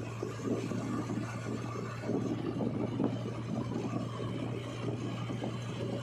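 Vehicle engine running with a steady low hum under uneven rushing road and wind noise, heard from on the move close behind a JCB 3DX backhoe loader.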